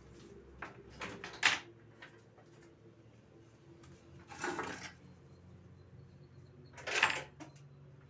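A few sharp clicks, then two short rustling scrapes of objects being moved about and handled, over a faint steady low hum.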